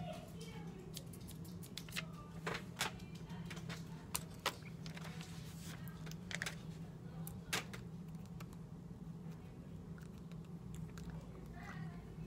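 A sheet of paper crinkling and rustling as it is handled, in scattered sharp crackles, over a steady low hum.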